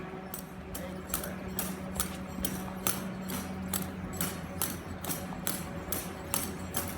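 Background music with a steady ticking beat, about two and a half beats a second, over a held low tone.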